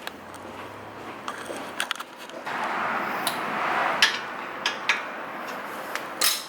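Clicks, knocks and scraping of hand tools and metal brake hardware being handled, with a rougher scraping stretch in the middle.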